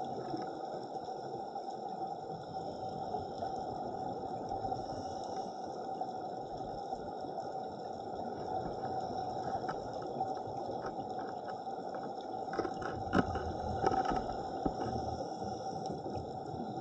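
Muffled underwater ambience heard through a camera housing: a steady rushing hiss with a faint hum. A scatter of short clicks comes in about two thirds of the way through.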